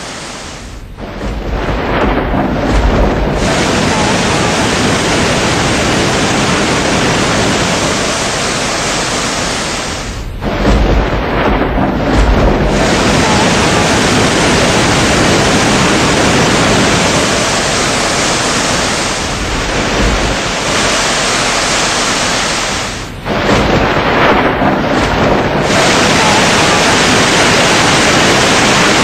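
Loud, steady rush of a river in spate, a dense churning noise of floodwater, which dips and changes briefly about ten seconds in and again a little past twenty seconds.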